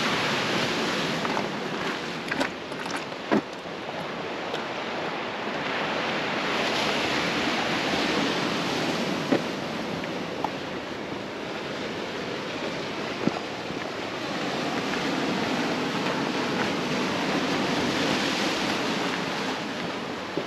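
Ocean surf breaking on a rocky shore, a steady wash that swells and fades in slow surges, with wind buffeting the microphone. A few sharp clicks cut through it, two in the first few seconds and two more later.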